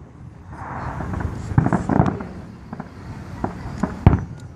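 Fireworks display: aerial shells bursting with a series of sharp bangs at irregular intervals, after a swelling hiss in the first couple of seconds.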